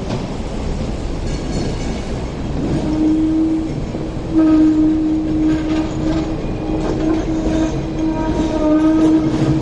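Hong Kong double-decker electric tram running round the terminus loop, with a steady hum that starts about three seconds in and a faint clatter of wheels over the rails and points.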